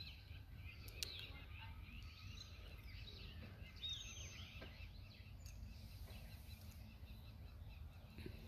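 Faint chorus of small birds chirping and twittering, with one louder call about four seconds in, over a steady low rumble.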